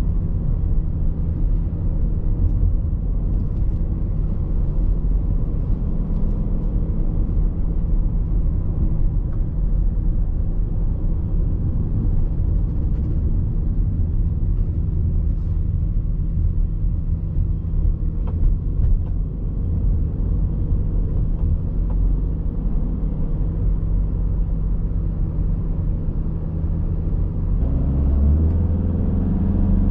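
Audi A6 C6 2.0 TDI diesel driving over a bumpy road, heard on board: a steady low rumble of engine and road noise with a few faint knocks. Near the end the engine note grows stronger and rises in pitch.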